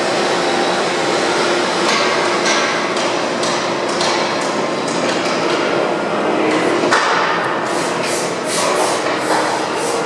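Droop & Rein FSM 1255 bed milling machine running, a steady machine noise with a faint whine and sharp knocks, scattered at first and from about two-thirds of the way through coming about three a second.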